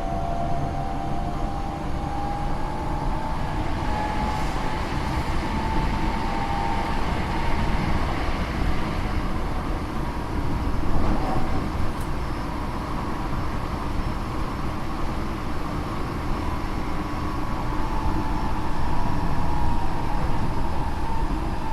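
Tokyo Metro 8000 series electric train running, heard from inside the car: rumble of wheels on rail under a whine from its traction motors and Mitsubishi IGBT inverter, the whine rising slightly in pitch over the first several seconds, fading, and returning near the end. The car is known as an abnormal-sounding one whose motor tone sounds muddy at most speeds.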